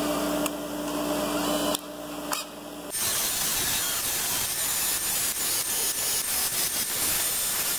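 A steady motor hum, then, from about three seconds in, an engine valve spun in a cordless drill is held against a bench buffer's abrasive wheel, giving a steady rasping hiss as the carbon is buffed off the valve.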